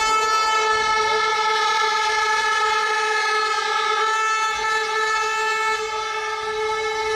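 A steady, unbroken horn-like tone with a stack of overtones, holding one pitch throughout.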